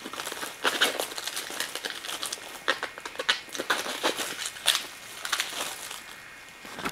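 Packaging being crinkled and rustled by hand, an irregular run of crackles as an item is unwrapped.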